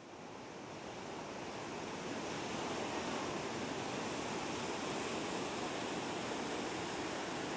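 Ocean surf washing onto a sandy, rocky beach: a steady rush that fades in over the first two seconds.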